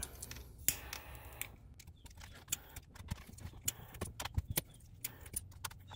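Irregular light clicks and taps of hard plastic parts being handled and pressed together: a Jeep Grand Cherokee's white shifter indicator housing and its black console bezel.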